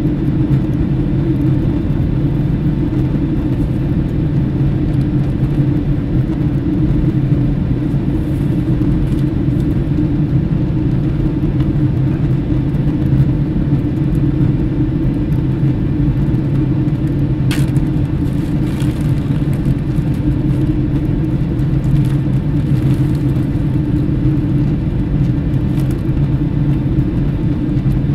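Steady, loud, low engine rumble with a constant drone that does not change in pitch or level. A brief sharp click about two-thirds of the way through.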